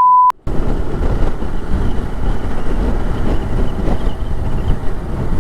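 A steady high beep tone cuts off just after the start. Then comes the noise of riding a TVS Apache RR 310 motorcycle on the road: wind rushing over the helmet-mounted microphone with a low rumble from the engine and road.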